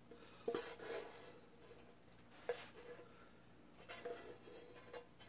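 A few faint taps and scrapes of a utensil against a frying pan as thick cheese fondue sauce is coaxed out of it, in an otherwise quiet room.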